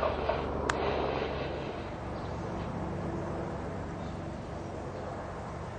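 Zeppelin NT airship's propeller engines droning steadily overhead, with a single sharp click about a second in.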